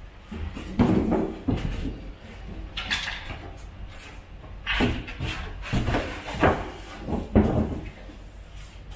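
Polystyrene foam packing pieces being pulled off a boxed television and handled: a string of irregular scrapes and knocks several times over.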